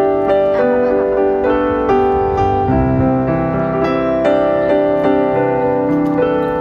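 Background piano music: a melody of single struck notes over held chords, a new note about every half second.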